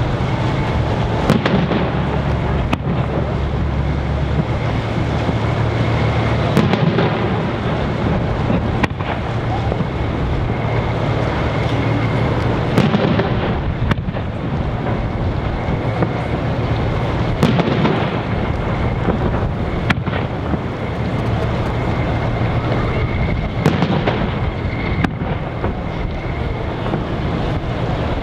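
Aerial firework shells bursting one after another, about a dozen sharp bangs a few seconds apart, over a steady background noise.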